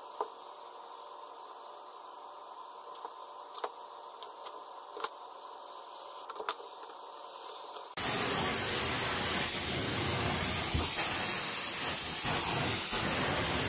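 A faint steady machine hum with a few sharp clicks. About eight seconds in, it cuts to the loud, steady rushing hiss of a carpet-cleaning extraction wand, spraying and sucking under a truck-mounted vacuum.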